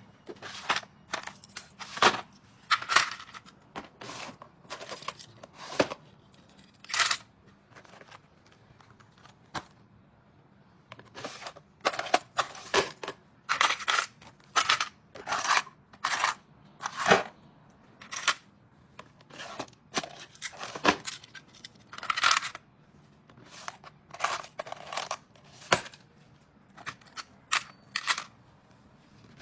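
Irregular sharp clicks and clacks of small hard items being handled, one after another with short gaps, some with a brief metallic ring.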